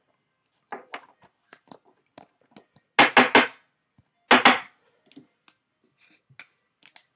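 Trading cards being handled and set down on a tabletop: scattered light clicks and taps, with two quick runs of louder knocks about three seconds and four and a half seconds in.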